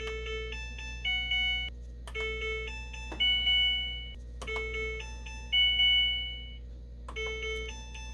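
Washing machine's electronic beeper playing the same short chime four times. Each is a quick run of short notes ending in a held note about a second long. The machine beeps like this whenever it is touched.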